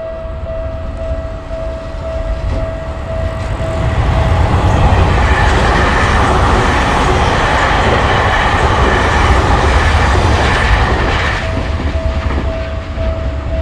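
Japanese level-crossing warning bell ringing in a steady repeated ding, drowned out about four seconds in by a train passing through the crossing for some seven seconds; the bell is heard again near the end.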